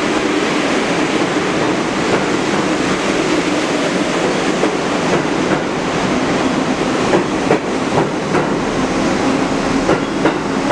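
New York City subway train running alongside the station platform, a loud steady rumble with wheels clacking over the rail joints, several sharp clacks in the second half.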